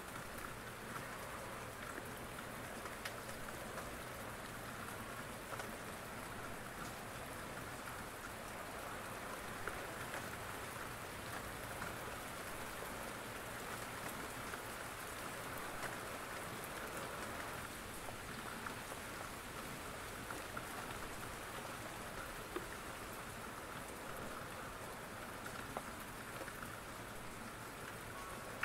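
Steady rain falling, an even patter with a few single louder drops standing out.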